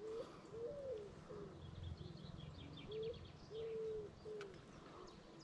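A pigeon cooing in the background: a series of soft, low coos, one drawn out longer in the middle of the phrase. Faint high chirps of a small bird come in briefly in the first half.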